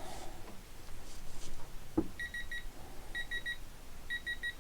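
Digital torque meter beeping in quick sets of three short high beeps, repeated about once a second, as a head bolt is pulled to about 26 foot-pounds. A single click sounds just before the first set of beeps.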